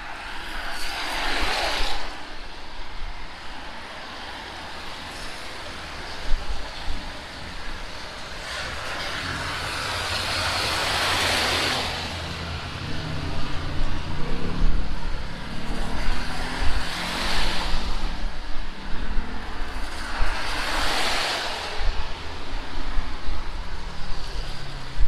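Cars passing on a wet street: tyre hiss on rain-soaked asphalt swells and fades about four times, the longest pass a few seconds long near the middle, over a steady low rumble of wind on the microphone.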